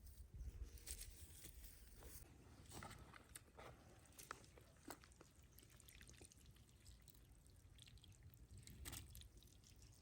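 Near silence, with faint scattered clicks and light rustles.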